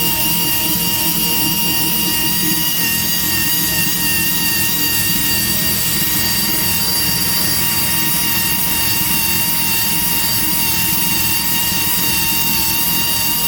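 Rotary tire buffer running steadily with a high, even whine as it grinds the tire's inner rubber smooth around a nail hole, preparing the spot for an inside patch.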